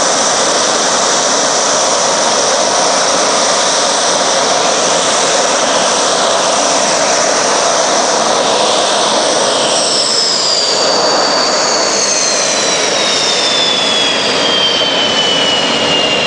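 Dassault Mirage fighter's turbojet running loud and steady, a dense roar with a high whine on top. About ten seconds in, the whine starts to slide steadily down in pitch.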